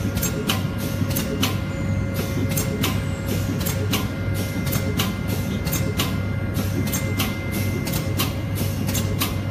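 PCB drilling machinery running: a steady low hum with a few constant tones, overlaid by sharp mechanical clicks at about two a second.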